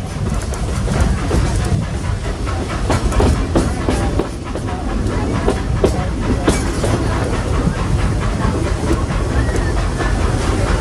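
Walt Disney World Railroad steam train rolling along the track, heard from aboard a passenger car: a steady low rumble with the clickety-clack of wheels over rail joints and many small rattles and clicks from the car.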